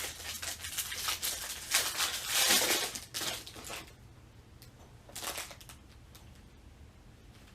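Foil wrapper of a trading card pack crinkling and tearing as it is ripped open and handled, a dense crackle for about four seconds with one more brief crinkle a second later.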